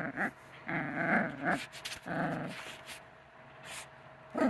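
Puppy growling in short bursts while tugging on a cloth in a game of tug-of-war, about three growls close together, then a pause and one more near the end.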